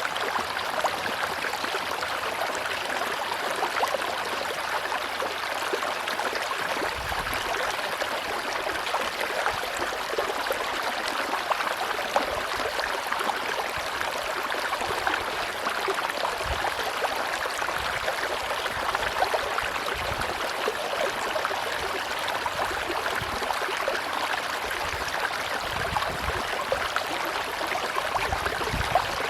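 Tropical river water rushing and gurgling over rocks in a steady, even stream, with fine splashing throughout and occasional soft low rumbles.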